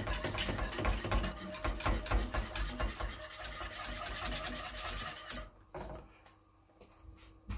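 Wire whisk beating a thin tomato-paste sauce in a stainless steel saucepan: fast, continuous scraping and rattling of the wires against the pan, stopping about five and a half seconds in. A few light clicks follow near the end.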